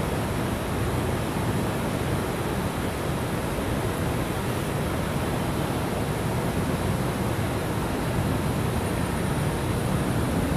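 Steady rushing background noise at an even level, with no distinct knocks, tones or voices.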